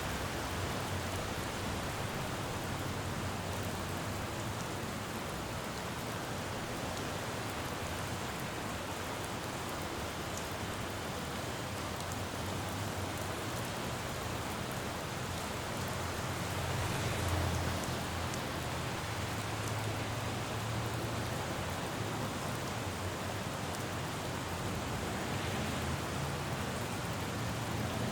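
Steady rain falling on a city road, with the low rumble of traffic on the wet street underneath. The rumble swells louder about two-thirds of the way through, as a vehicle passes.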